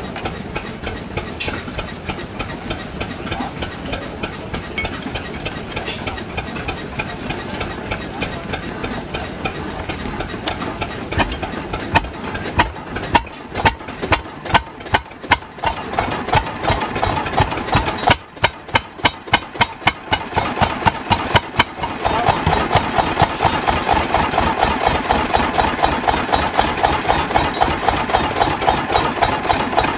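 Deutz stationary diesel engine running just after a cold start. Through the middle it fires with separate, uneven loud beats, then from about two-thirds of the way through it settles into a louder, faster, even beat.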